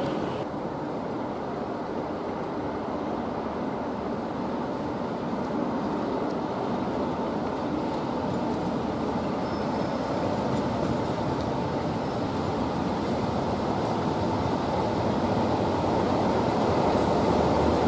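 Class 47 diesel locomotive approaching at the head of a train, a steady rumble of engine and wheels that grows louder toward the end.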